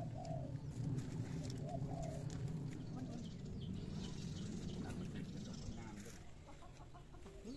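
A dove cooing in short repeated phrases over a low murmur of voices.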